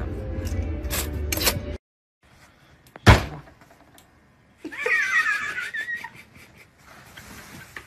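A single sharp, loud thump about three seconds in, then a brief high wavering sound a couple of seconds later.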